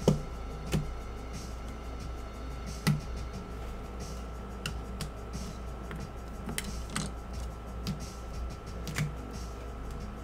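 Hard plastic card cases clicking and clacking as they are handled and set down on a table, with a few sharp clacks (right at the start, under a second in, about three seconds in and near the end) among lighter taps, over a steady low hum.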